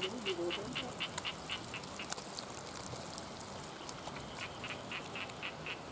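An animal calling: a run of short, high chirps about four a second that stops about two seconds in and starts again a little past the four-second mark.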